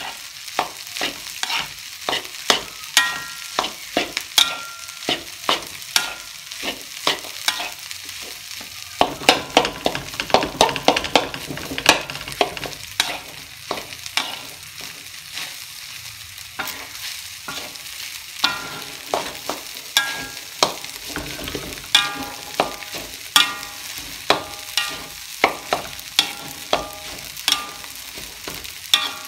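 Metal spatula scraping and clanking against a steel wok as fried rice is stir-fried, about two to three strokes a second, the wok ringing briefly after some strokes. A sizzle of frying runs underneath.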